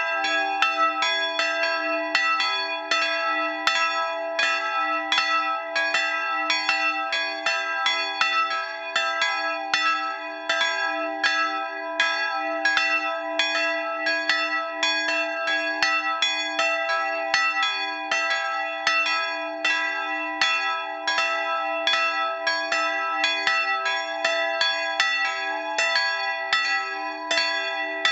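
Two bronze bells cast in 1913 by Schilling & Söhne of Apolda, tuned to e'' and g-sharp'', swinging and ringing together. Their strokes overlap at roughly two to three strikes a second over a steady ringing hum.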